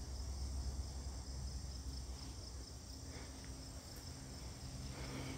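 Insects, likely crickets, trilling steadily in a fast, even pulse, with a low rumble underneath.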